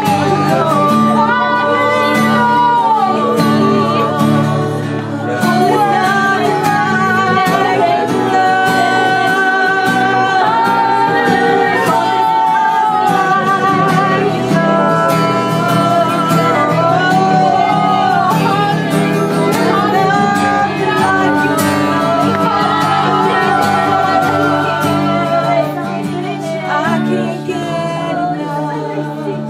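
Worship music: a singer's melody, bending and wavering with vibrato and no clear words, over sustained chords from the band.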